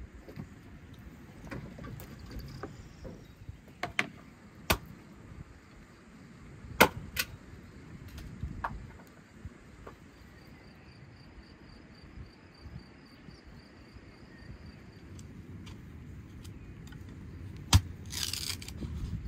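Outdoor food preparation with a low rustling background and scattered sharp knocks and clicks, the loudest about a third of the way in and near the end. In the middle, a fork whisking marinade in a glass bowl makes a faint, even run of light ticks for a few seconds.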